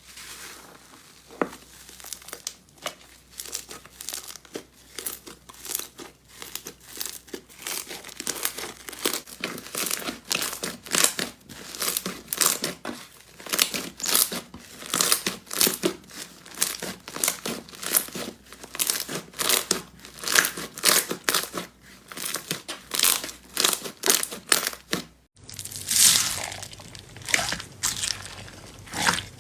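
Slime being squeezed and pressed by hand, crackling and popping in quick irregular bursts several times a second. About 25 seconds in, it cuts off briefly and louder crackling starts.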